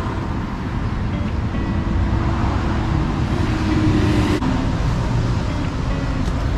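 A steady low rumble. A faint hum joins it a little after the middle and stops suddenly.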